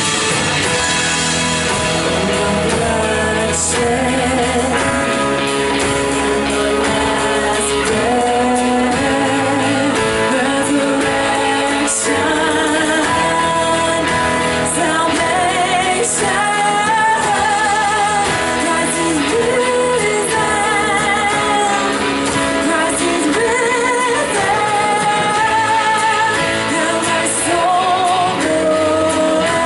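Live worship band playing a song: voices singing a melody over guitar and drums, with cymbal strikes.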